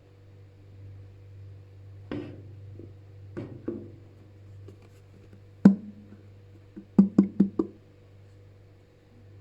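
Hard objects knocking and tapping: a few separate light knocks, one loud knock, then a quick run of five taps in well under a second.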